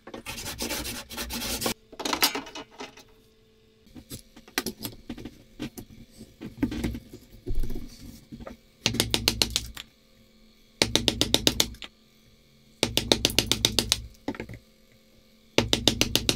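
Hand tools on a wooden block: a hand saw cutting in a few quick strokes, then, as a chisel is worked across the block, four separate bursts of rapid, even ticking at about ten a second, each lasting about a second.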